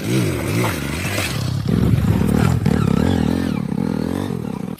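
Engine running, its pitch wavering up and down over and over, with some clatter; it stops abruptly at the end.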